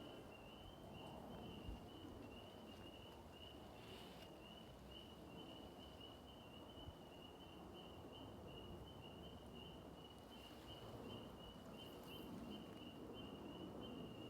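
An insect, cricket-like, chirping steadily in a high pulsing line over faint outdoor background noise.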